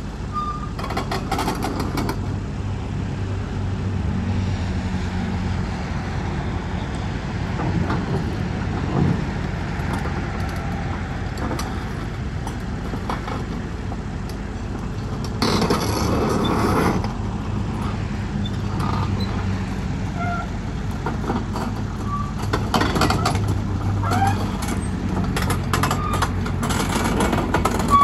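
The diesel engine of a 2001 Kobelco SK250LC excavator idling steadily, with a short burst of hiss a little past halfway.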